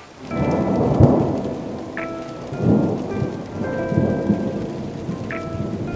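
Rain and rolling thunder with held musical notes over them, the opening of a song. The thunder swells loudest about a second in.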